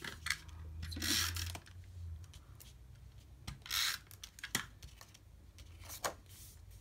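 Cardstock panels rustling and sliding on a craft mat as they are handled, with a few short dry swipes of a tape runner laying adhesive on the back of a panel. The longest rustle comes about a second in, and there is a small click midway.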